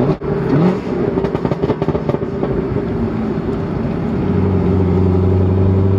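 Supercharged 6.2-litre V8 of a cammed 2015 Corvette Z06 with a burble tune. A short rev is followed by a string of irregular exhaust pops and crackles off throttle, then it settles into a steady drone about four seconds in.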